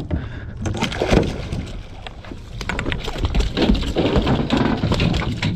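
A gaffed bluefin tuna thrashing and splashing at the side of the boat as it is hauled aboard: a dense run of splashes and knocks.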